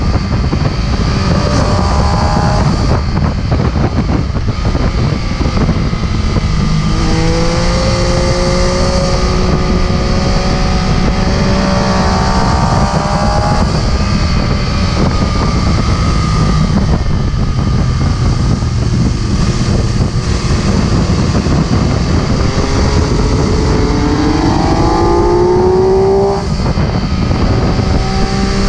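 MV Agusta F3 675's three-cylinder engine under way, its note climbing in pitch several times as the bike accelerates and dropping back between pulls, under heavy wind rush on the microphone.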